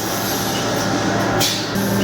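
20 HP air compressor running: a steady low hum under a noisy rush, with hissing surges every second or so.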